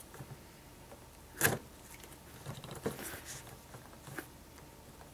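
Folding knife slitting the tape that seals a plastic coin tube's cap: a few scattered clicks and scrapes, the sharpest about a second and a half in.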